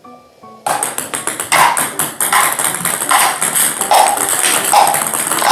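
Background music with a steady beat, coming in suddenly and loudly about half a second in after a few soft tones.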